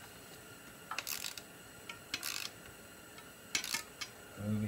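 Ratchet wrench clicking in three short bursts as a bolt at the front axle of a Honda CR250R is tightened.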